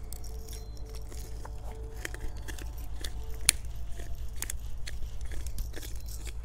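Hand pepper grinder being twisted, cracking peppercorns in a quick run of small crunchy clicks, with one sharper click about halfway.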